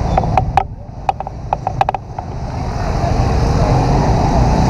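Yamaha scooter riding through traffic, heard on a handheld camera's own microphone: a steady low engine and wind rumble, with a run of sharp clicks in the first two seconds, then a hiss of wind and road noise that grows louder as the scooter speeds up.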